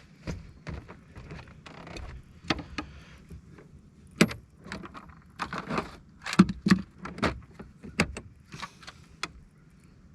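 Irregular knocks, clicks and rattles of gear being handled aboard a fishing boat, loudest in a cluster a little past the middle.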